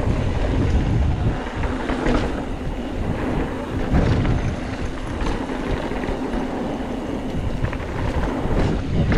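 Wind buffeting the camera microphone and the tyre noise of a mountain bike rolling fast down a dirt trail, with scattered clicks and knocks from the bike rattling over the ground.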